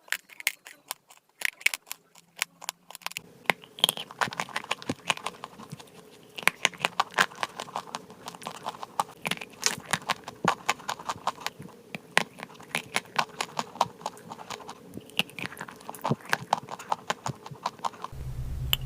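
Close-miked crunching and chewing of dry chalk clay: rapid, irregular crisp cracks and crackles, several a second, with a faint steady hum underneath from about three seconds in.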